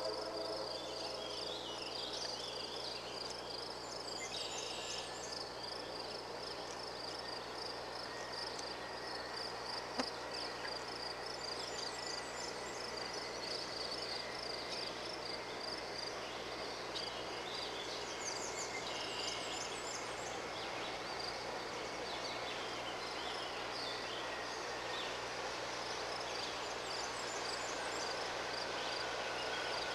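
Rural outdoor ambience: an insect trilling in a steady, even pulse, with scattered bird chirps over a low wash of background noise. A single click about ten seconds in.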